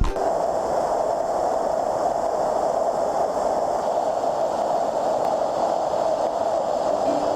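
Rushing water of a mountain stream, a steady, even noise that holds at the same level.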